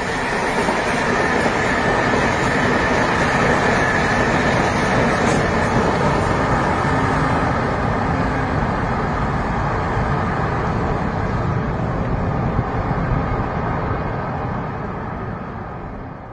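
Electric passenger train running at speed: a steady rumble and rush of wheels on track, fading over the last couple of seconds.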